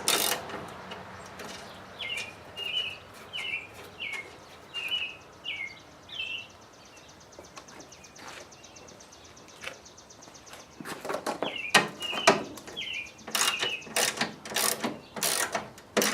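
Hand ratchet backing out small screws: bursts of sharp ratchet clicks, with short high squeaks about two a second as the screws turn. The work goes quieter around the middle, then picks up again with more clicking near the end.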